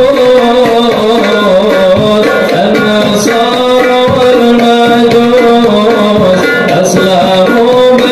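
Hadroh music: sholawat singing over a steady beat of rebana frame drums.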